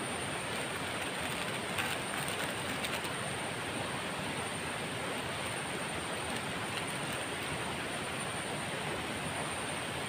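Steady rush of a river or stream running close by, with a thin, steady high-pitched whine above it. A few faint plastic crackles from a sachet being handled about two to three seconds in.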